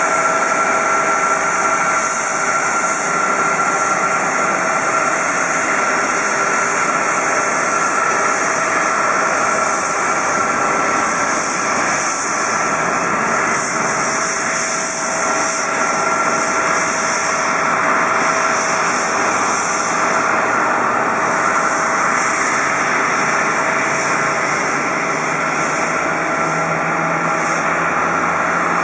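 Boeing 777-200ER's twin jet engines at low taxi power as the airliner rolls past close by: a steady rushing whine with a high tone held throughout.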